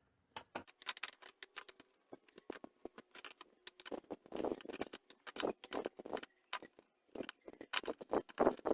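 Irregular metallic clicks and taps of a hand wrench loosening the fasteners on a clutch master cylinder, some coming in quick clusters.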